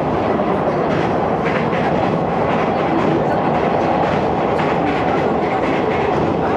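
Electric commuter train running over rails as it crosses a river bridge, heard from inside the carriage: a steady rumble of wheels on track with light clacking.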